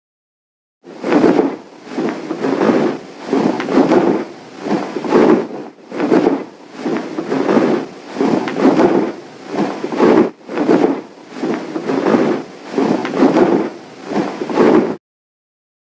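Dragon sound effect: a rough, noisy pulsing at about three pulses every two seconds, ending abruptly.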